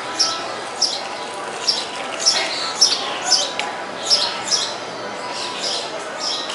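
Birds calling over and over: short high chirps, each dropping in pitch, coming every half second or so, over a faint steady hum.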